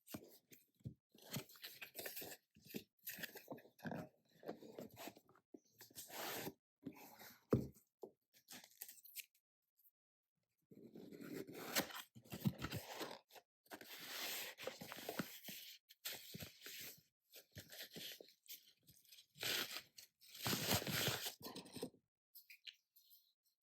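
Packaging being handled and opened: irregular crinkling, tearing and scraping, with a sharp knock about a third of the way in.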